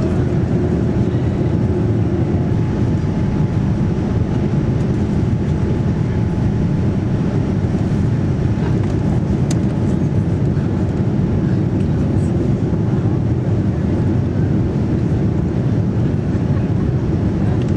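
Steady rumble of engine and airflow noise inside the cabin of a Boeing 787-9 airliner, mostly low and even, with a faint steady hum above it and one faint click about halfway through.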